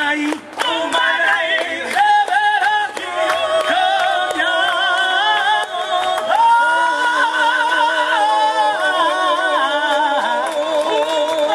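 Unaccompanied singing, a lead voice with a wavering vibrato, with people clapping along in time.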